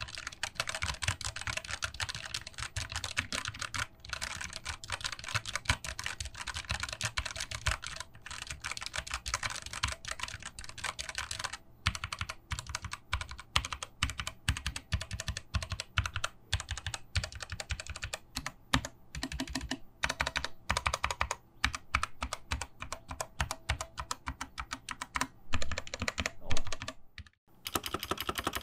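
Key clacking from fast typing on a 60% mechanical gaming keyboard, in a switch sound test of the Redragon K630's Outemu brown switches against the Gamdias Hermes E3's blue switches. The typing is continuous at first, grows sparser with short pauses between bursts after about twelve seconds, and stops briefly near the end.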